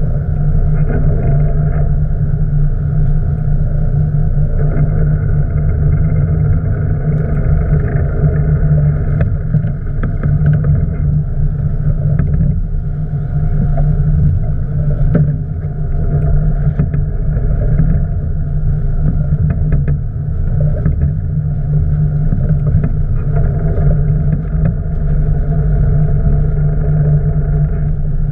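A boat's engine running steadily at an even pitch, with a few faint knocks over it.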